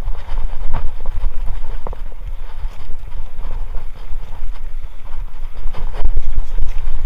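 Kona Honzo hardtail mountain bike riding over rough trail: a steady deep rumble of wind and tyres on the microphone, broken by frequent knocks and rattles from the bike over roots and rocks.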